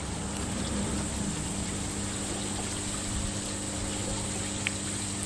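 Aquaponics water pump humming steadily under a constant trickle of running water.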